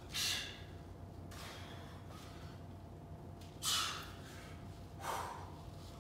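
A man's sharp, forceful breaths as he works through push-ups with a rotation, four breaths spread across the seconds, the second one fainter.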